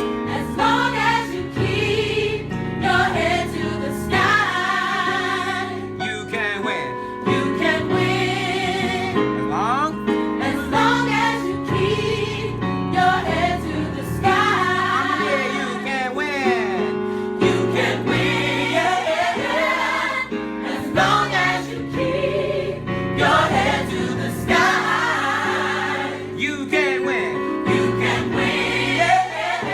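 Gospel choir singing with instrumental backing, the voices rising and falling over sustained low notes.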